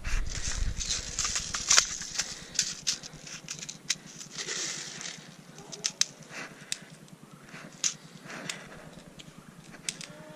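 Rustling of tall grass and handling noise against the microphone, loudest in the first few seconds, with scattered sharp clicks.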